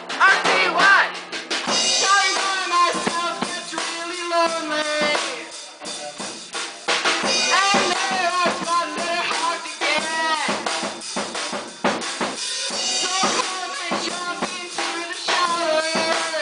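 Live band playing: a singer's voice through a microphone over a drum kit, electric bass and electric guitar.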